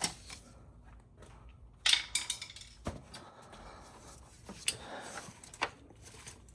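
Scattered clicks and scrapes of a flat-head screwdriver prying at the clip holding a cable onto a car starter motor, with a cluster of clicks about two seconds in and single sharp clicks after.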